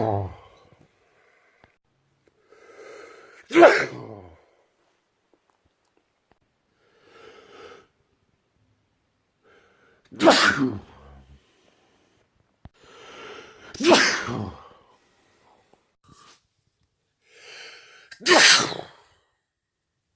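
A person sneezing loudly, four explosive sneezes a few seconds apart, most led in by a short gasping in-breath, with the tail of another sneeze right at the start.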